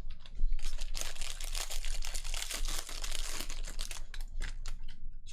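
Foil trading-card pack wrapper crinkling and crackling as it is handled and torn open, for about four seconds.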